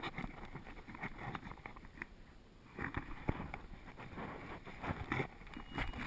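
Handling noise from a camera worn on a dog: irregular rustling, scraping and small knocks as the dog shifts about and the camera rubs against her fur, busier from about halfway through.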